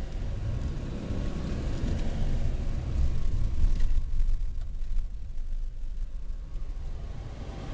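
Car driving, heard from inside the car: a low, uneven road-and-engine rumble that swells about three to five seconds in.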